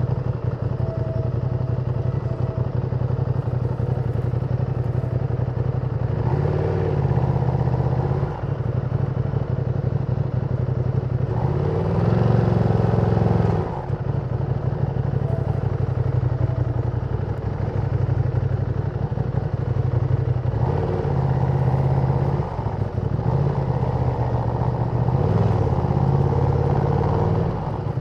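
Ducati Panigale V2's 955 cc L-twin engine on its stock exhaust, running steadily under way, with the revs rising and easing off four times.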